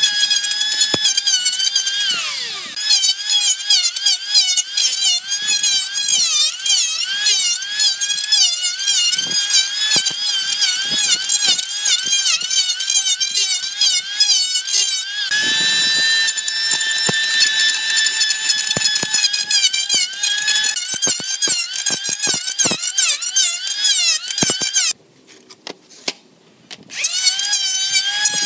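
Electric hand planer running, a high motor whine that keeps dipping and recovering in pitch as the blades bite into the wooden boards. Near the start the pitch falls away and the sound briefly drops before it picks up again, and it cuts out for about two seconds near the end.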